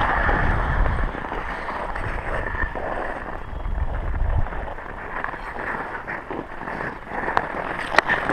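Ice skate blades scraping and gliding on rough outdoor ice, with wind buffeting the microphone during the first half. Sharp clicks near the end.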